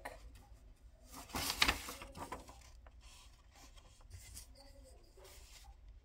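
A sheet of paper rustling as it is lifted and shifted over a tablet, loudest a second or two in, then faint pen strokes scratching on the paper.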